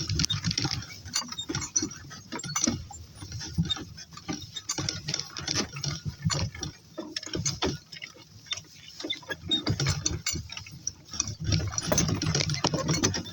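Donkey-drawn cart moving over rough pasture, with irregular clicks, knocks and rattles from the cart and harness.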